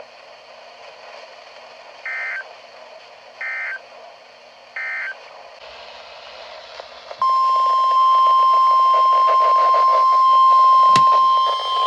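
Three short Emergency Alert System data bursts, the warbling end-of-message code, each under half a second and about a second and a half apart, over faint radio hiss. A little past halfway the steady 1050 Hz weather-radio warning alarm tone starts and holds, with a single click near the end.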